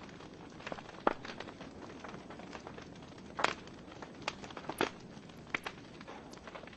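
Wood fire burning in a fireplace: a soft steady hiss under irregular sharp crackles and pops from the burning logs, the loudest pops about a second in, near the middle and about two-thirds through.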